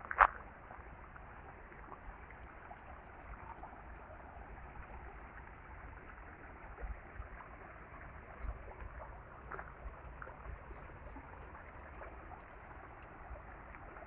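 Flowing water rushing steadily, with one loud footstep right at the start and a few faint scattered clicks.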